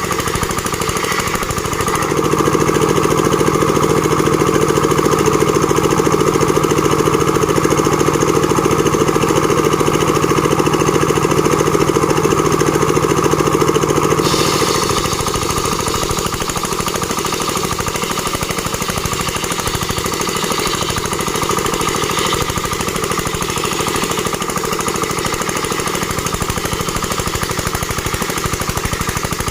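A board-making machine running with a loud, fast, rattling mechanical noise. From about two seconds in until about halfway through, it is louder with a steady low hum, then it settles back to a lighter, steady running sound.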